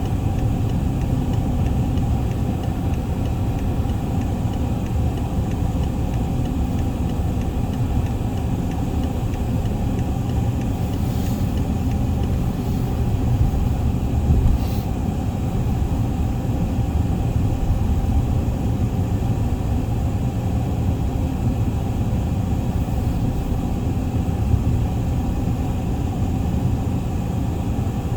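Steady low rumble, with a couple of faint ticks about halfway through.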